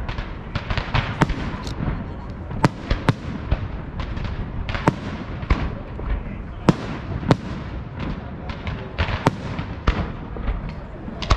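Aerial fireworks display: shells and rising comets bursting in an irregular run of sharp bangs, often several a second, over a continuous rumble.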